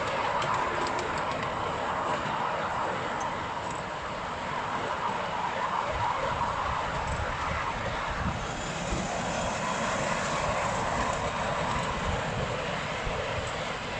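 Miniature ride-on train running steadily along its track. The locomotive's 1980s ride-on lawn mower engine drones under the load of a long string of carriages, mixed with the carriages rolling over the rails.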